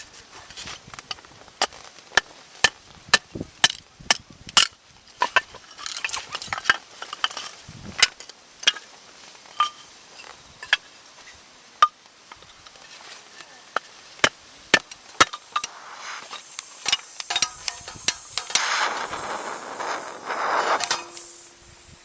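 Firewood being chopped and broken for a campfire: sharp, irregular knocks and snaps of wood. Near the end comes a hiss that rises over a few seconds and stops abruptly.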